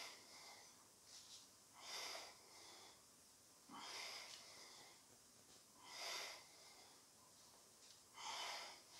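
A man's faint, forceful exhalations, one with each press of a pair of heavy dumbbells, five breaths about two seconds apart.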